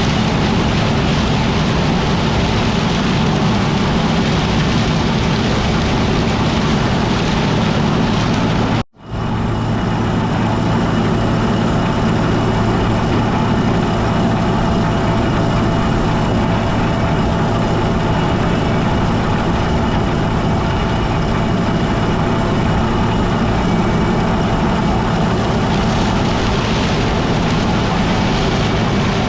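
Combine harvester running steadily through corn, a constant loud engine and machinery drone with a low hum. The sound cuts out abruptly for an instant about nine seconds in, then picks up again.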